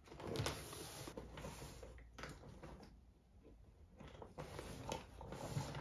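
Hands rummaging through a makeup bag: rustling of the bag with scattered small clicks and knocks of items being moved about inside.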